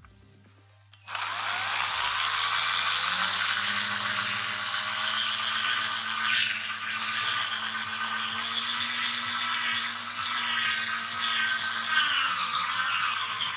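Electric drill with a step drill bit starting up about a second in, then running steadily as it cuts a hole through the side of a plastic junction box, a loud rasping whir of the motor and bit grinding the plastic.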